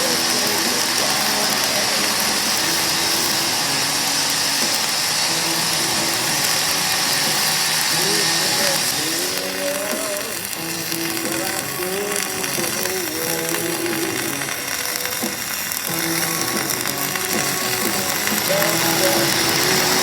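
Self-shielded flux-core (Lincoln NR-305 Innershield) welding arc crackling and hissing steadily. The hiss eases about nine seconds in, and faint voices or a radio come through behind it.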